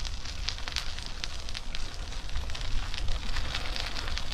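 Riding noise from a Batavus Touring bicycle on a cycle path: a low wind rumble on the microphone with a steady crackle of small, irregular ticks.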